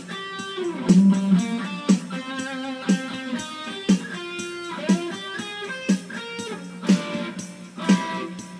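Electric guitar playing a picked melody with sliding notes, over a sharp hit about once a second.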